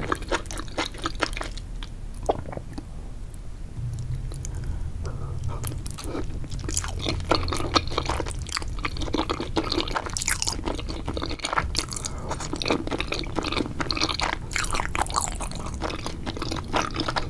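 Mukbang eating sounds: a person chewing and biting sticky wide starch noodles in thick spicy sauce, a dense run of small rapid crackles and clicks, with a brief lull about two seconds in.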